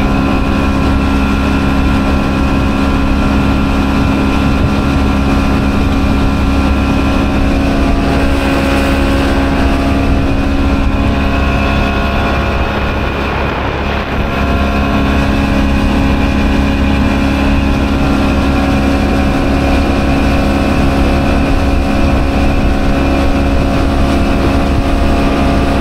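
Outboard motor running steadily at part throttle, pushing a small aluminum boat across the water. The engine note wavers and dips briefly about halfway through, then settles again.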